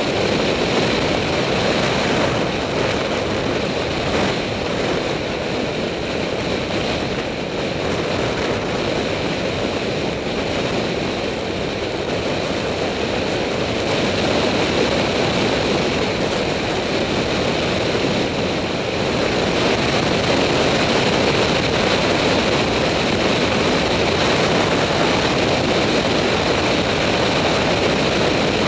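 Steady rush of wind over the microphone and tyre noise from a bicycle coasting fast downhill, getting a little louder in the last third as the speed builds.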